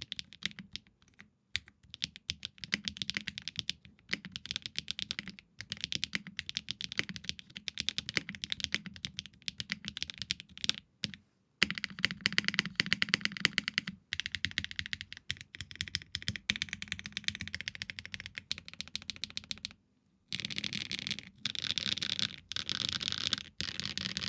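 Typing on a 65% custom mechanical keyboard with stock HMX Cloud linear switches, a polycarbonate plate with plate foam, and GMK keycaps: a steady run of keystrokes. It pauses briefly twice, then gives quick dense bursts near the end.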